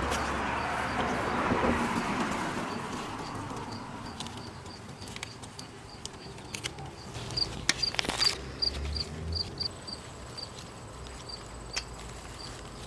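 An insect chirping in a steady run of short high pulses, about three a second. A hiss fades out over the first few seconds, and a few sharp clicks come about eight seconds in.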